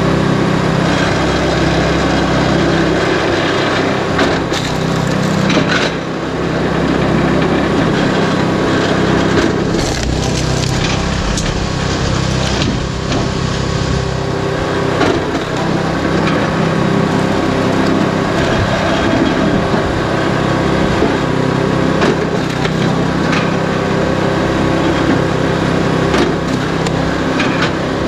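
Supersplit flywheel log splitter's small gasoline engine running steadily while large log rounds are split. Wood cracks and splinters sharply several times as the ram drives through.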